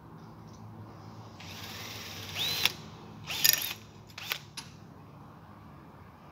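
Cordless drill boring into aluminium profile in two short bursts, its whine rising and falling each time, followed by two sharp clicks.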